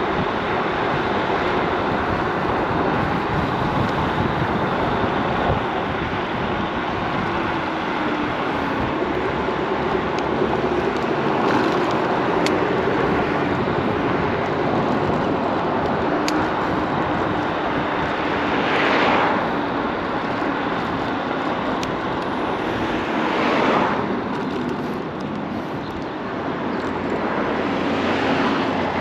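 Riding a Solar FF Lite electric scooter at speed: steady wind rush and tyre noise with a faint motor whine underneath. Passing vehicles swell up and fade twice, about two-thirds of the way in and again shortly after.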